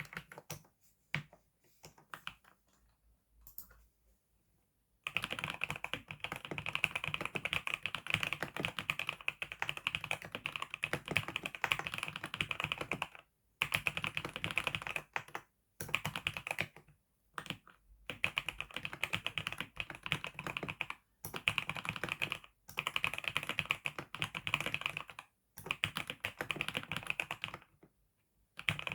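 Typing on a computer keyboard: a few scattered keystrokes at first, then fast continuous typing from about five seconds in, broken by short pauses every few seconds.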